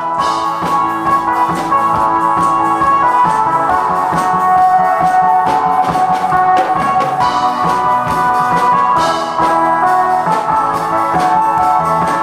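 Instrumental break of a Korean trot song's backing track, with a steady drum beat under sustained melody instruments; no one is singing.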